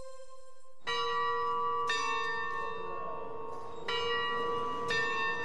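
A large bell tolling: four strokes, each ringing on under the next.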